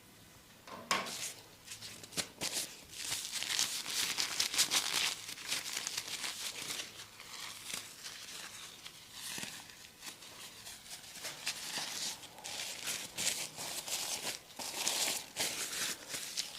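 Hands scratching and rubbing through hair in a head massage: a crackly, rustling run of quick strokes that starts about a second in, thins out past the middle and picks up again near the end.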